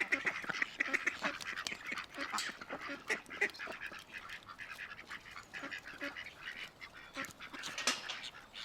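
Many tropical birds calling at once in a large aviary: a dense mix of chirps, squawks and short calls, some nasal and honking, thinning a little in the second half with one loud call near the end.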